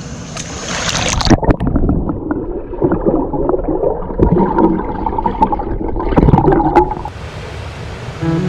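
Muffled gurgling and bubbling of water heard through a camera held underwater while swimming, with sharp clicks and knocks; it clears about seven seconds in, and music comes back near the end.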